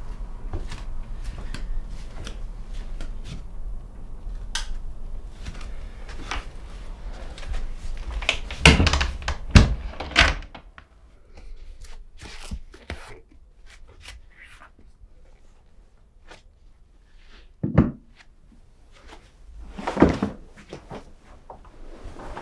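A string of knocks, thuds and clicks, like a door and drawers being handled as someone moves about the room, over a low hum that stops about ten seconds in. The loudest knocks come in a cluster about nine to ten seconds in, with two single thumps later, near 18 and 20 seconds in.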